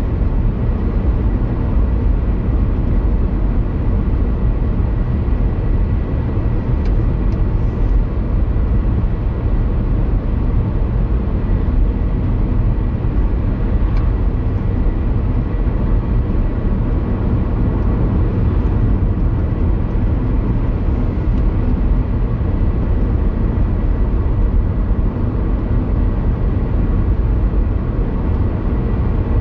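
A car driving along a road, heard from inside the cabin: a steady low rumble of road and engine noise, with a faint high whine.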